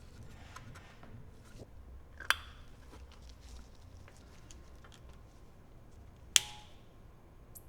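Computer parts being handled and fitted together during reassembly: faint ticks and rattles, with two sharp clicks about four seconds apart, the second one louder and ringing briefly.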